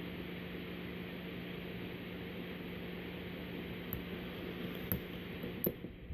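Steady background hiss and low hum, with a few faint clicks near the end from a lock pick working the pin tumblers of a Master Lock Magnum M187 padlock.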